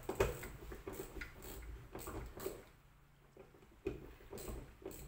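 Scattered light clicks and knocks, irregular, from hands and tools working on the jet ski's parts, with a quieter stretch in the middle.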